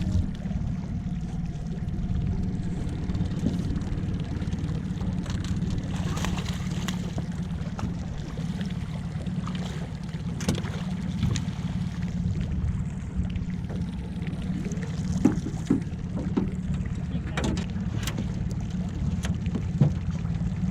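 Outboard motor running steadily, with a few light knocks and clicks now and then.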